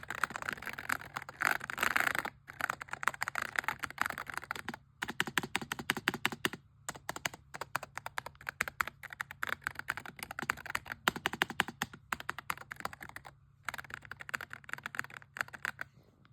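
Typing on a Coolkiller Balloon 84 low-profile mechanical keyboard with Ice Blade linear switches: rapid runs of keystroke clacks, broken by several short pauses. A faint steady low hum lies underneath.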